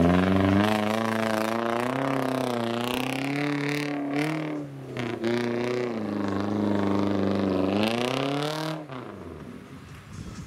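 Off-road 4x4 engines revving hard under load while wading through deep water, the pitch rising and falling with the throttle. The sound breaks off briefly about halfway, picks up again with a rise in pitch, then drops away quieter near the end.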